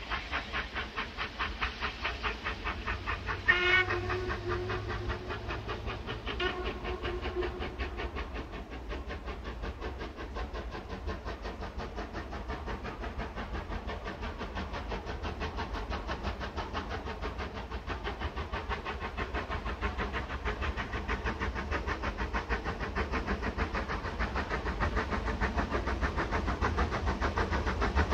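Ivatt Class 2MT 2-6-2T steam tank locomotive approaching under steam, its exhaust beating in a rapid, even rhythm that grows louder as it nears. The whistle is sounded twice a few seconds in: a longer blast, then a shorter one.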